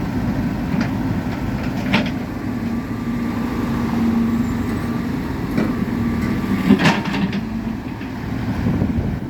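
JCB backhoe loader's diesel engine running steadily with a constant hum, with two sharp knocks from the machine working the road, one about two seconds in and a louder one near seven seconds.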